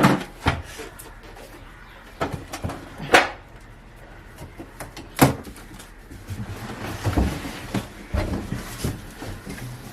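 Knocks and thuds of a split AC outdoor unit being unpacked from its packaging: a handful of separate sharp knocks, then rougher rumbling handling noise in the second half.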